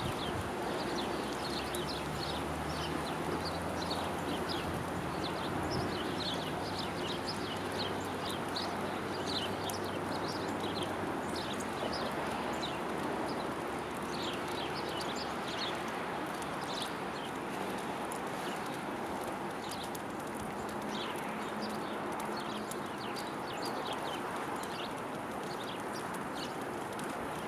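Small songbirds chirping, many short high calls scattered throughout, over a steady background hiss with a faint low hum.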